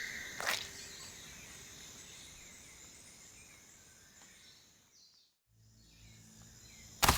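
Rainforest ambience of insects and birds, fading out to silence about five seconds in. A low steady hum then comes in, and a sharp loud sound lands right at the end.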